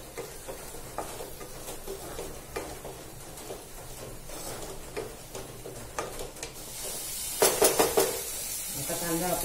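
Freshly added sliced onions sizzling in hot oil in a kadhai, stirred with a wooden spatula that scrapes and clicks against the pan. The sizzle grows louder about two-thirds of the way in, followed by four quick, sharp knocks.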